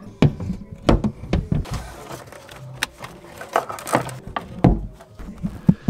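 Irregular knocks and clunks of a car ECU's metal case being handled and bolted back into place.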